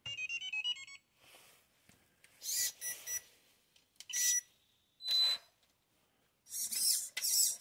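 RC crawler electronics powering up: a quick run of stepped electronic startup beeps lasting about a second, followed by several short buzzy whirs, then a run of quick pulses near the end.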